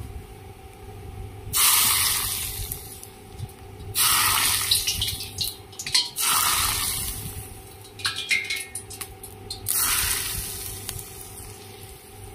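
Hot oil poured from a pan over a bowl of chopped raw garlic, shallots, chillies and spring onion in soy sauce, hissing up in four bursts that each die away over a second or so.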